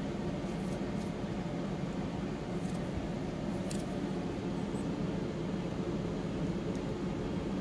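Steady low hum of room background noise, like a fan or air-conditioning, with a few faint light clicks.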